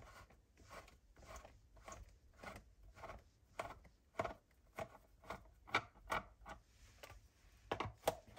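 A Phillips screwdriver turning a small screw out of the plastic housing of an electric pencil sharpener: an irregular run of faint clicks and scrapes, about two or three a second, pausing briefly near the end.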